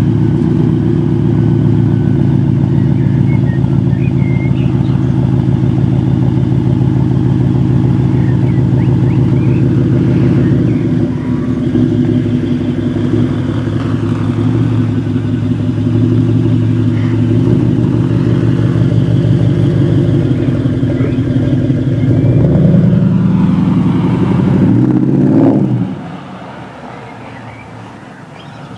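BMW X6 xDrive50i's twin-turbo V8 running steadily, with a brief rise and fall in pitch about 25 seconds in, after which the sound drops to a much lower level.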